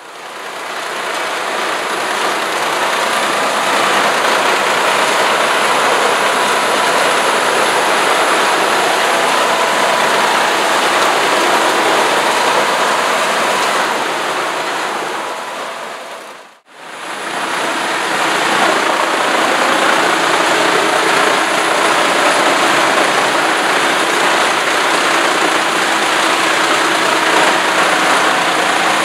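Truck-mounted Heizohack wood chipper running steadily while it chips logs. The sound fades in at the start, drops out briefly a little past halfway, and fades back in.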